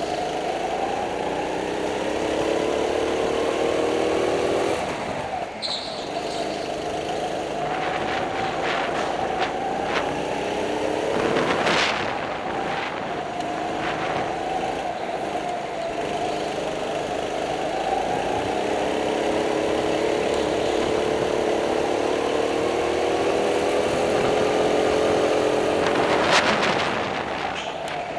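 Go-kart engine heard from on board, revving up in long rising sweeps along the straights and dropping back into the corners, three or four times over. Two brief harsh noises stand out, one near the middle and one near the end.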